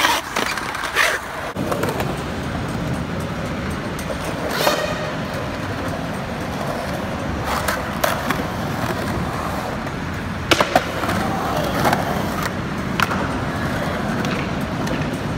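Skateboard wheels rolling on concrete in a continuous rumble, broken by a series of sharp clacks of the board hitting the concrete and landing.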